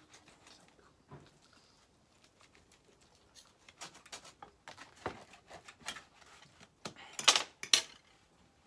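A knife cutting through crisp wood-fired pizza crust: scattered dry crackles and clicks that grow denser in the second half, with two louder scraping strokes near the end.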